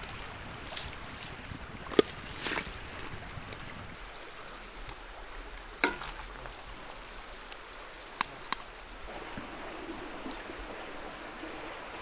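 A few sharp clinks of a metal spoon and a skimmer against a steel bowl and a cauldron, over a steady hiss. There is one clink about two seconds in, another near the middle, and two close together a little later.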